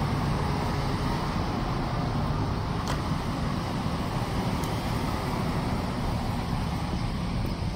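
Steady street traffic noise, with a couple of faint clicks partway through.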